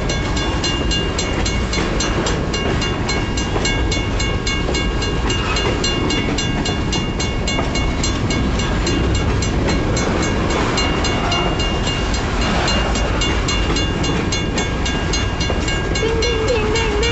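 A long BNSF grain train of covered hopper cars rolling past at low speed, with a steady rumble and wheel noise. A railroad crossing bell dings rapidly and evenly over it.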